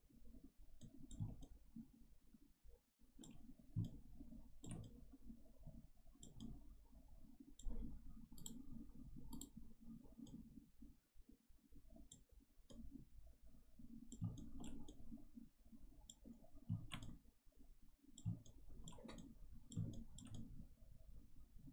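Computer mouse clicking at irregular intervals, often in quick pairs or small clusters, over a faint low background hum.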